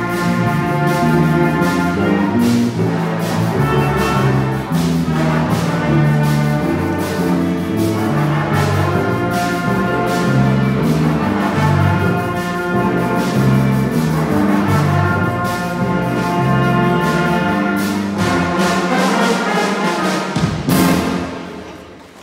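Live school jazz band playing, with brass leading over a steady drum beat. The piece ends on a final loud hit near the end that dies away.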